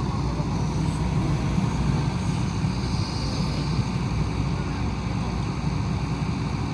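Heavy diesel machinery running steadily under load with a low, rumbling engine note.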